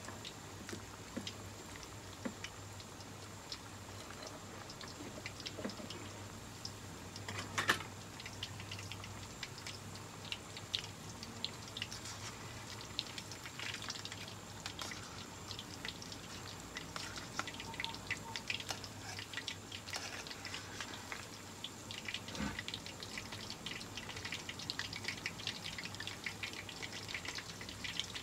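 Battered shrimp deep-frying in a wok of hot oil: a steady bubbling with many small crackles and pops, and one louder knock about eight seconds in.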